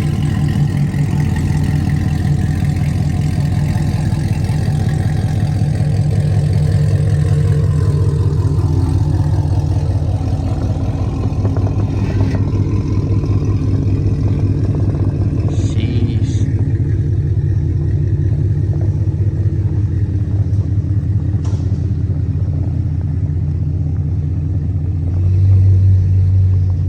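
Pontiac G8 GT's 6.0-litre V8 running steadily, swelling louder near the end.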